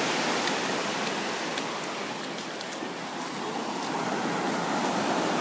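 Ocean surf washing onto the beach: a steady rush that eases off in the middle and swells again near the end.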